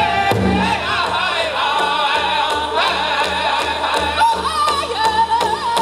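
Powwow drum group singing in high voices over a steady beat struck together on a large shared drum: a chicken dance contest song in progress.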